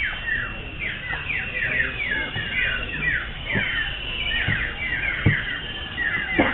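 Many common ioras singing at once: a dense run of overlapping whistled notes, most sweeping down in pitch, with a few low knocks in the middle.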